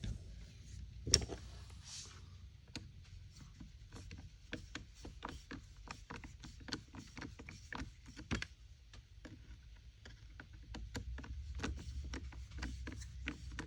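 Many small clicks and light taps in quick, irregular succession, from handling and fitting the parts of a chainsaw's top handle and throttle trigger during reassembly, with one louder knock about a second in.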